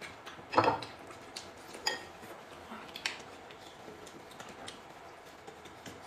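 Tableware clinking: a loud clattering knock about half a second in, sharp ringing clinks near two and three seconds, and smaller taps in between.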